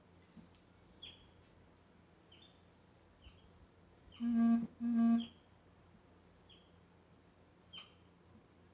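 Small birds chirping in short, high, downward-sweeping calls every second or so. About four seconds in come two loud, short, flat buzzing tones in quick succession.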